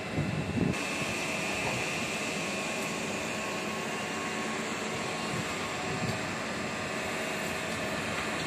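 Steady machine noise with a high whine over it, with a few low thumps in the first second.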